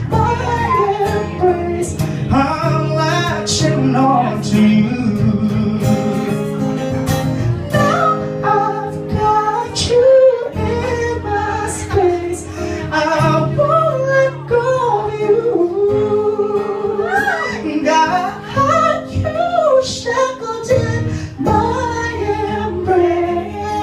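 A female voice singing a pop song with sliding vocal runs over instrumental accompaniment.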